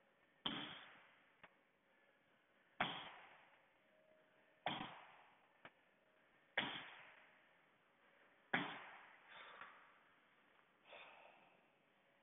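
Six thuds about two seconds apart, each dying away over about a second: feet landing on the floor from tuck jumps.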